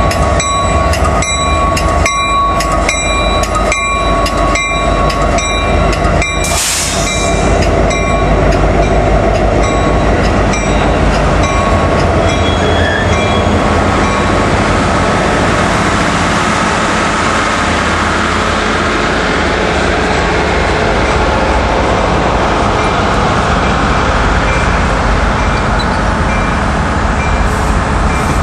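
Union Pacific SD70ACE diesel locomotive passing at close range, its bell ringing about twice a second. About six and a half seconds in there is a brief hiss of air, and the bell stops soon after. The train's cars, including bilevel Superliner passenger cars, then roll past with a steady rumble of wheels on rail.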